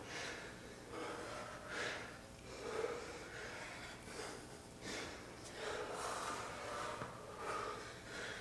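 Short, faint breaths about once a second from people exerting themselves through Russian twists, a seated core exercise.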